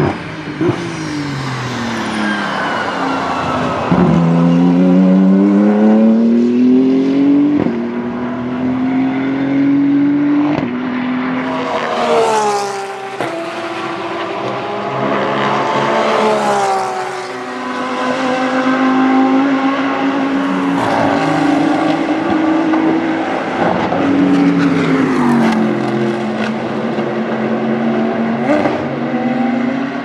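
GT3 race car engines on a circuit. The engines pull up through the gears with sharp upshifts, and several cars pass at speed, the note dropping in pitch as each goes by.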